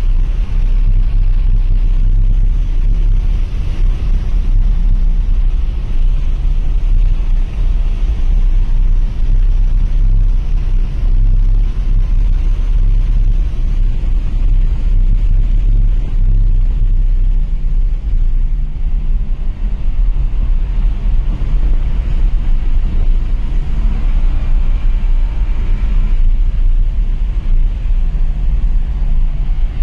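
Engine, tyre and wind noise heard inside the cabin of a BMW being driven at speed on a race track: a loud, steady low rumble with the engine note underneath.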